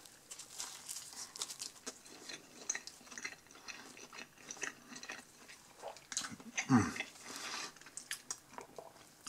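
Close-up chewing of a bite of soft Pizza Hut pan-pizza crust: irregular small wet clicks and crackles of the mouth working. About two-thirds of the way through there is one short, louder voiced sound from the eater, falling in pitch.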